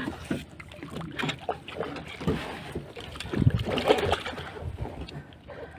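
Water slapping and knocking against a small boat's hull, with irregular thumps.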